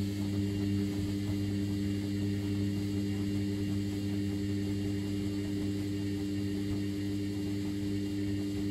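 Sharp (Vestel) front-loading washing machine running during a 90° boil wash: a steady motor hum as the drum turns the laundry through hot soapy water. The hum cuts off suddenly near the end.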